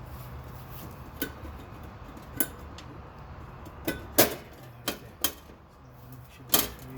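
Sharp clicks and knocks, about seven at irregular intervals, as a homemade safety lock on an electrical panel board is worked and tested. The loudest come a little past the middle and near the end, over a low steady hum.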